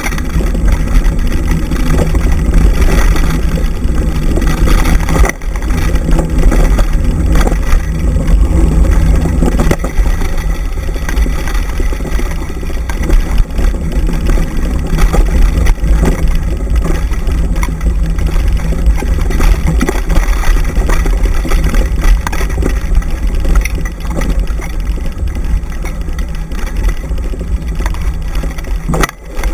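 Dryland mushing rig rolling fast over a dirt forest trail behind a running dog, with wind buffeting the microphone: a steady heavy rumble scattered with small rattles and knocks from the bumpy ground.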